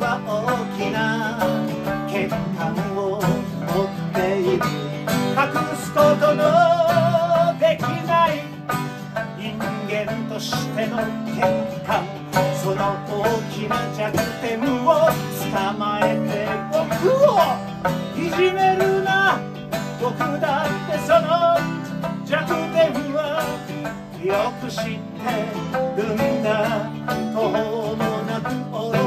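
Live acoustic music: two acoustic guitars strummed and a sanshin plucked, with a man singing lead.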